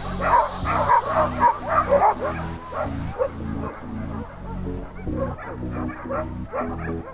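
Sled dogs yipping and barking, thickest in the first two to three seconds and thinning out after, with background music underneath.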